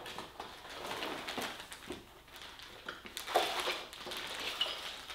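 Rustling and handling of a wooden model kit's packaging and plastic bag of parts, with a few light clicks.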